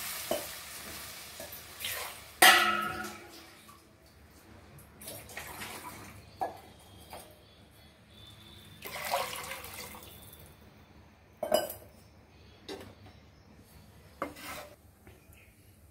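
Water pouring into an aluminium pot tails off in the first second or two, then a steel ladle stirs the water, knocking against the pot several times, loudest about two and a half seconds in.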